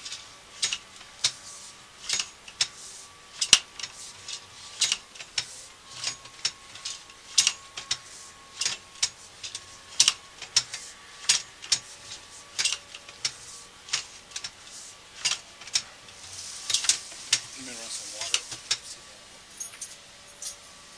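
Sewer inspection camera rig being fed down a sewer line: sharp, irregular clicks and ticks, one or two a second, as the push cable and camera head work through the pipe, over a faint steady electronic tone.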